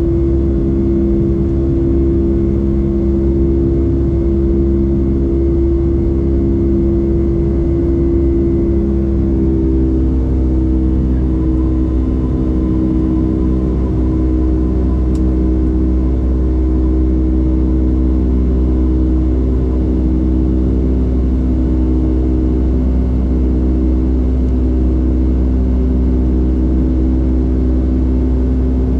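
Boeing 757-200's jet engines at climb power heard inside the cabin: a loud, steady rumbling drone with a pulsing hum over it, its tones shifting slightly about ten seconds in.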